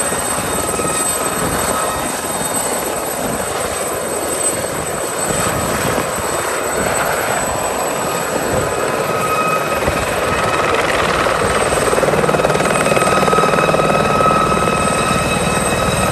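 Aérospatiale SA 341 Gazelle helicopter with its Astazou turboshaft engine, lifting off and flying low. A steady high turbine whine rides over the rotor noise, growing somewhat louder in the second half.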